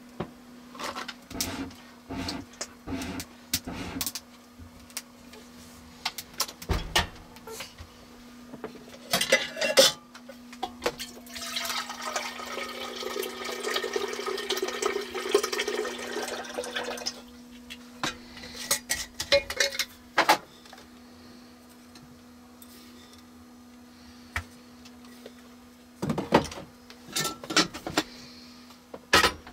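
Water running from the spigot of a glass water dispenser into a stainless steel percolator coffee pot for about five seconds, starting about a third of the way in. Around the pour come short clinks and knocks of the metal pot and its lid being handled, over a steady low hum.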